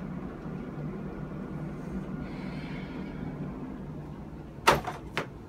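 Steady low room hum, then two sharp knocks about half a second apart near the end.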